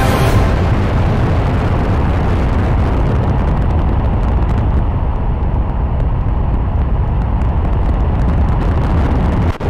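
Steady rush of airflow noise over a camera mounted on a high-power rocket's airframe in flight. The upper hiss fades about halfway through, leaving a deep rumble.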